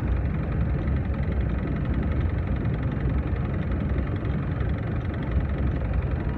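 Traffic idling at a standstill: a steady low engine rumble from cars and motorcycles waiting close by.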